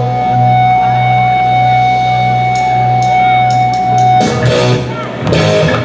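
Rock music with guitar and drums. A long held note over a steady bass runs for about four seconds, then the music changes.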